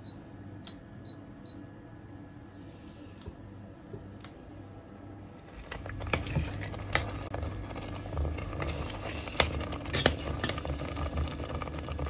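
A spoon stirring and scraping in a cooking pot, with frequent clicks and knocks, starting about halfway through after a quieter stretch with a low steady hum.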